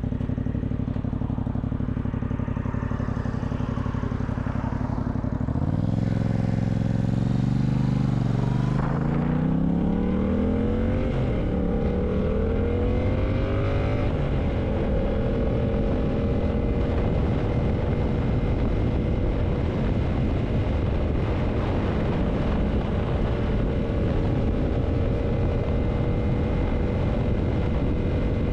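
Yamaha MT-07's parallel-twin engine idling, then pulling away about five seconds in. It revs up three times with rising pitch, shifting up between each, and settles into a steady cruise from about halfway.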